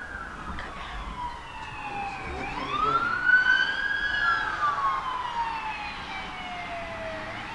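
Emergency vehicle siren wailing, its pitch gliding slowly up and down: it rises about two and a half seconds in, falls through a long slow drop, and starts rising again at the very end.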